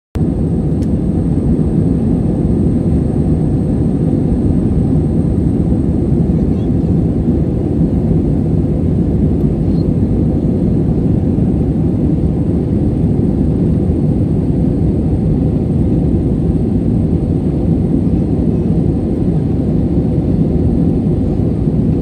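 Steady cabin noise of a jet airliner in flight: engine and rushing-air noise, deep and even, with no change in pitch or level.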